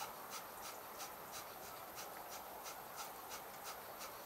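Quiet background hiss with faint soft ticks, about four or five a second.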